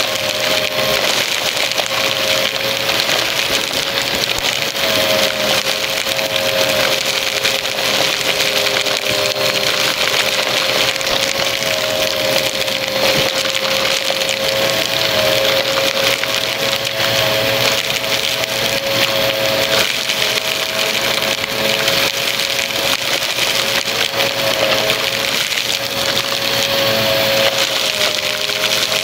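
Upright vacuum cleaner running on carpet with a steady motor whine, sucking up crunchy confetti-like debris that crackles and rattles through the clear tube.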